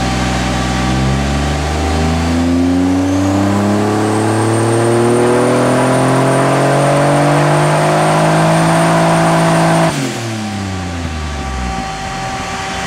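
Turbocharged 2.9-litre Ford V6 with a Garrett GT40 turbo making a dyno pull: the revs climb steadily for about ten seconds, with a high whistle joining partway through. The revs then drop away.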